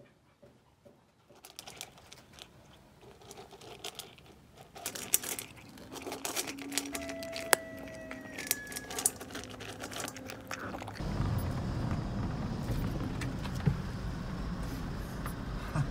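A cat crunching dry kibble from a stainless steel bowl: a rapid, uneven run of small crunches and clicks. About eleven seconds in, this gives way to the steady low rumble of a car driving, heard from inside the cabin.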